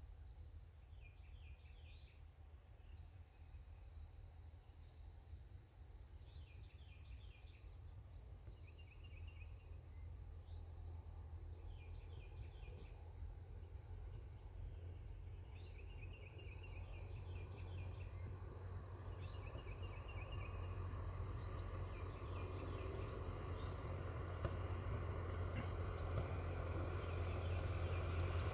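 Insects chirping in short repeated trills over a low drone that grows steadily louder as an aircraft approaches.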